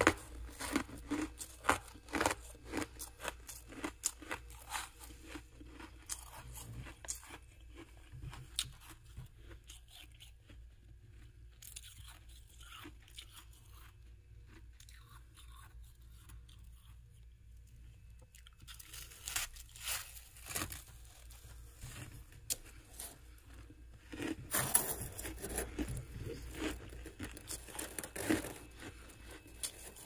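Crisp crunching of frost built up in a freezer by a humidifier, dug out with a metal spoon and chewed. It is dense at first, thins to scattered crackles for several seconds in the middle, then turns dense again near the end.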